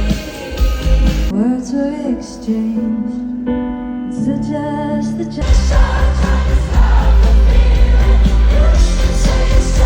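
Live pop music with singing and heavy bass. About a second in, the beat and bass drop out, leaving voices and held notes; a little past five seconds the full band and bass come back in.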